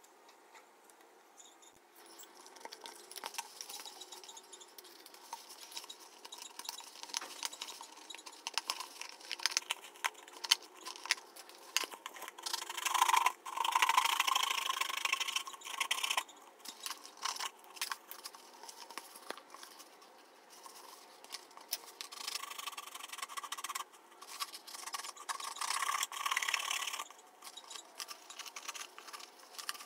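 A knife sawing and scraping through a dried paper mâché shell, with rubbing and rustling of the stiff paper as the shell is handled. It starts about two seconds in and comes in irregular spells, loudest about halfway through and again near the end.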